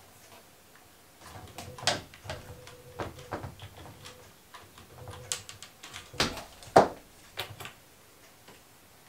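Stepper-motor pan-tilt rig swinging a string toy: a faint steady whine from about a second in until about five seconds in, among scattered sharp clicks and knocks of the rig, toy and a cat's paws on a wooden floor, the loudest a few near six to seven seconds in.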